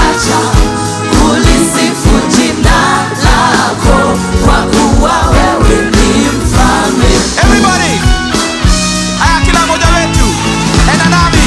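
Gospel worship music: singing over a band with a steady drum beat and bass line.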